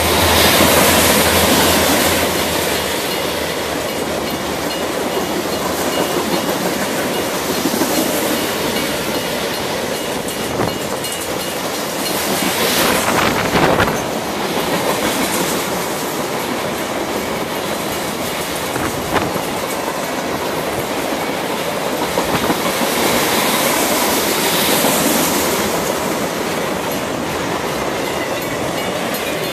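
Cars of a rail train loaded with welded rail rolling past: a steady loud rumble and clickety-clack of steel wheels on the track, with occasional faint wheel squeal.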